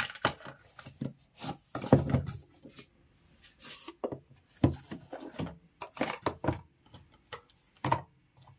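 A plastic packaging bag crinkling and rustling, with light knocks on the cardboard box, as a smartwatch charger is taken out of it; the loudest rustle comes about two seconds in.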